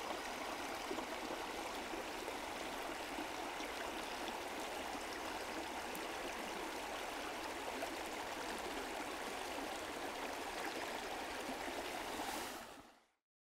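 Steady rush of a shallow stream running over rocks, fading out near the end.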